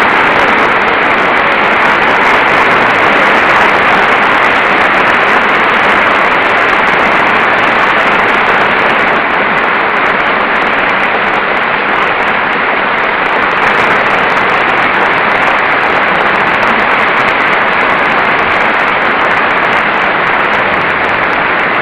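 A large crowd giving a standing ovation, clapping in a dense, steady mass at the close of a speech.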